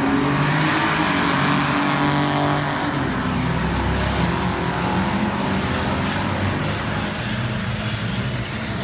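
Drag-racing cars, one of them a 1972 Chevrolet Chevelle, launching at wide-open throttle, the engines rising in pitch as they pull away, then fading slowly as they run off down the strip.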